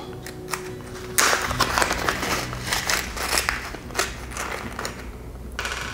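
Crinkling and rustling of small plastic hardware bags being rummaged through by hand, in search of a missing nut. The dense crackle starts about a second in and dies away just before the end.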